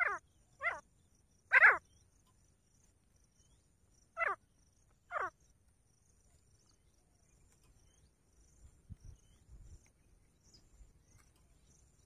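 Five short, loud animal calls: three in quick succession, the third the loudest, then two more a few seconds later.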